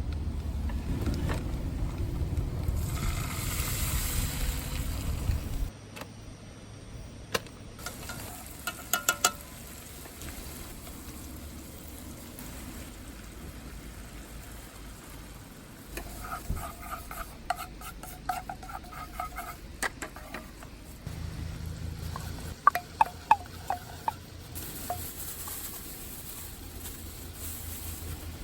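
Camp cooking sounds across several cuts: a sizzling, stirring stretch, then quieter moments with sharp clicks and knocks of utensils.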